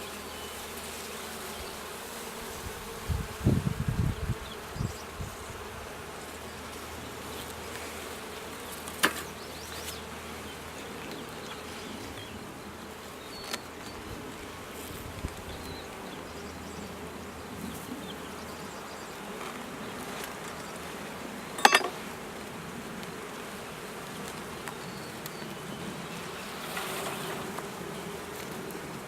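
Honey bees buzzing steadily around an opened hive. There are a few low thumps a few seconds in, and two sharp knocks, one about a third of the way through and one about three quarters through.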